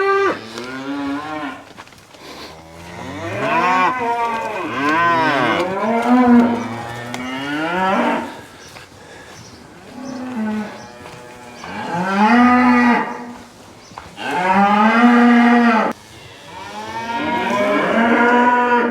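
Cattle mooing: a run of long, loud moos one after another, some overlapping, as the herd calls for the fresh hay bale being brought to them.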